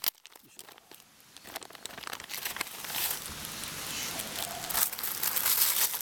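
Clear plastic bag and white wrapping paper crinkling as they are handled and the wrapped part is drawn out. It is nearly quiet for the first second or so, then the crinkling builds and is loudest near the end.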